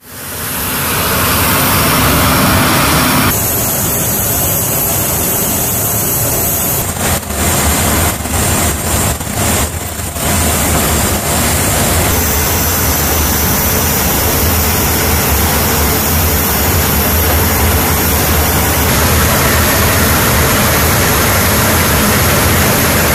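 C-17 Globemaster III jet engines running steadily, fading in at the start. About seven to ten seconds in, the sound turns uneven and choppy for a few seconds.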